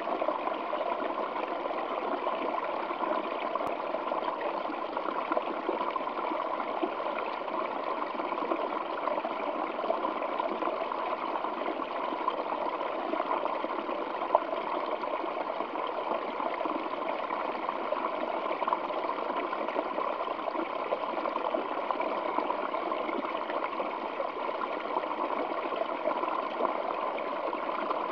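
Waterfall flowing over rocks: a steady, unbroken rush of falling and splashing water.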